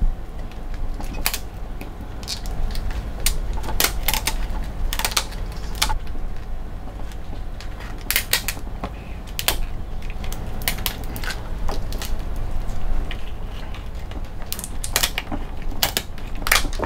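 Kitchen shears snipping and crunching through the shell of a parboiled Florida spiny lobster tail: a run of sharp, irregular clicks and cracks, bunched most closely a few seconds before the end, over a steady low hum.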